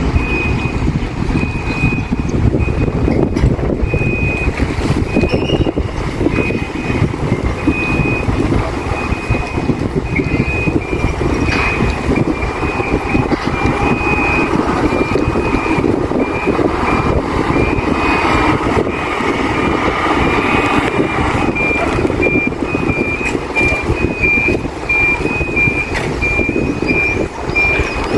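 Gas delivery truck's reversing alarm beeping in a steady, regular series of high single-tone beeps, over the truck's engine running.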